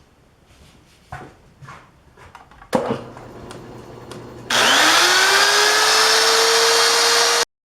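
A few light clicks of handling and one sharp metal knock, then an electric power tool motor starts up: its whine rises quickly and settles to a steady pitch over a loud rushing noise, and cuts off abruptly near the end.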